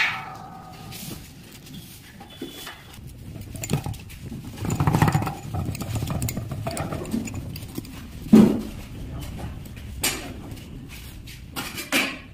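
Handling noises from a fresh-concrete air meter: a metallic clink with brief ringing at the start, a longer rough scraping noise about five seconds in, a loud knock a little past eight seconds, and smaller clicks near the end.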